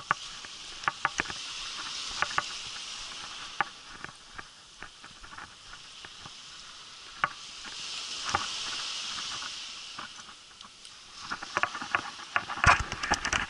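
Small waves washing up the beach in two slow swells of hiss, with scattered crunching footsteps on shelly sand. Near the end, a denser, louder run of crunches and knocks.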